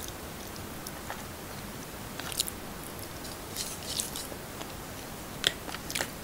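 Close-miked chewing and mouth sounds of someone eating: scattered short, sharp wet clicks and smacks over a steady faint hiss, the loudest a little past the middle.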